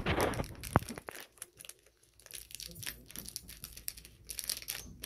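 A shiny foil toy packet crinkling and tearing as it is handled and cut open with scissors. There is a burst of rustling at the start, a sharp click just under a second in, then a dense run of crackling near the end.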